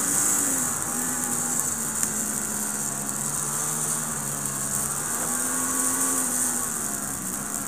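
Racing superbike engine, a Yamaha YZF-R1, heard from an onboard camera at fairly steady revs with small rises and falls, under a steady high hiss of wind rushing past.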